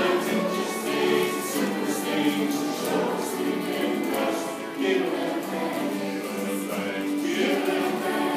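Live acoustic folk song: several acoustic guitars strummed with a violin, and a group of voices singing.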